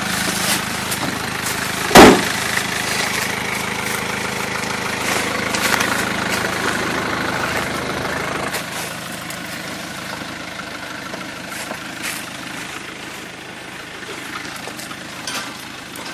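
Small cargo truck's engine idling steadily, with a loud door slam about two seconds in. The engine sound grows fainter after about eight seconds.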